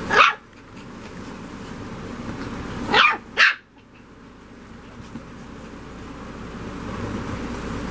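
Rat terrier puppies yapping: one sharp yap at the start, then two quick yaps in a row about three seconds in.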